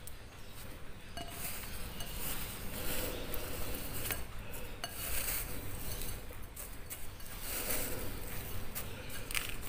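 Coarse white breadcrumbs (panko) rustling and crunching as a hand scoops and presses them over an egg-coated chicken fillet in a glass bowl, coating it for chicken katsu. A few light clinks of tongs and fingers against the glass.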